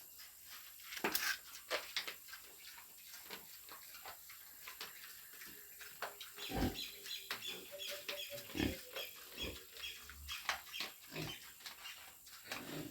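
Piglets grunting and squealing on and off, with scattered short rustles and knocks as they move about.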